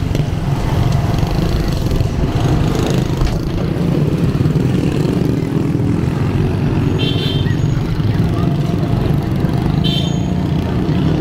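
Street ambience: motor traffic and motorcycles running steadily past, with two short high-pitched tones about seven and ten seconds in.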